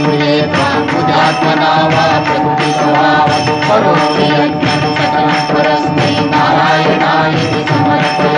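Hindu devotional song played during an aarti: chant-like singing over a steady held drone, with frequent sharp percussive strokes.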